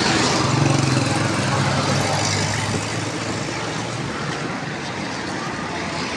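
A motor vehicle engine running close by, strongest in the first half, over steady street traffic noise.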